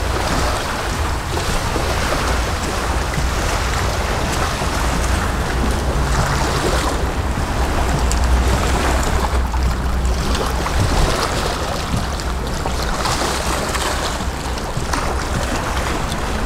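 Small sea waves washing against the shore, swelling and falling back every two or three seconds, over a steady low rumble of wind on the microphone.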